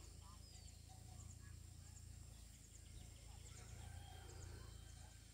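Near silence: faint outdoor ambience with scattered short bird chirps over a low steady hum.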